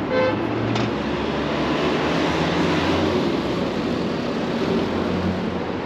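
Steady noise of road traffic on a busy city street, with a low engine hum. A short high beep sounds right at the start, and a click about a second in.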